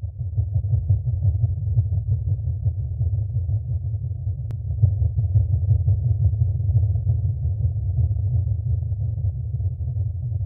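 Steady deep rumble, a low droning noise with no tune or beat.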